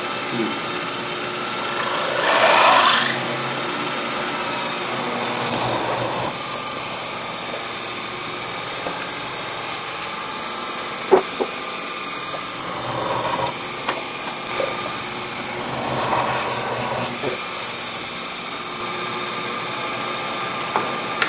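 A Sherline mill's motor and spindle running steadily as a number 3 drill bit bores into an aluminium block. The cutting noise grows louder two to four seconds in, with a short high squeal about four seconds in, and there is a sharp click around eleven seconds.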